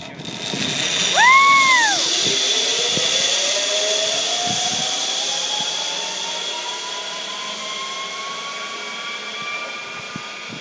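Zip-wire trolley running down a long steel cable: a loud whirring whine whose pitch climbs steadily as the rider picks up speed. A brief high rise-and-fall tone comes about a second in.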